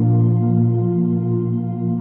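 Ambient background music with long, held tones.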